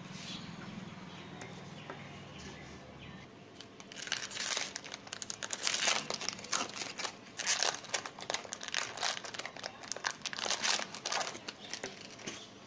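Clear plastic packaging crinkling and crackling as it is handled and unwrapped from a stack of thin metal bangles. It starts about four seconds in and goes on as a quick, irregular run of crackles until near the end.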